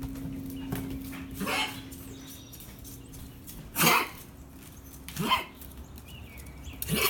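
Rat terrier coughing: four short coughs spread a second or two apart, the loudest about four seconds in. The coughing is the dog's bad cough.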